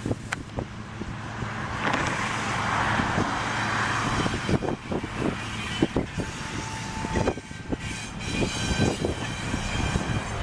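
Freight train rolling past: a steady low rumble under a run of irregular clanks and knocks from the wheels and cars. A brief thin squeal comes about two-thirds of the way through.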